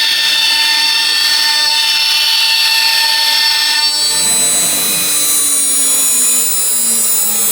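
CNC router spindle running with a steady high-pitched whine made of several tones. About four seconds in the high whine cuts out, leaving a lower hum that slowly falls in pitch.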